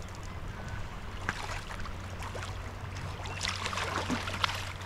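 Hooked trout splashing and thrashing at the surface in shallow water as it is brought to the net, the splashes coming thicker in the second half, over the steady rush of the river.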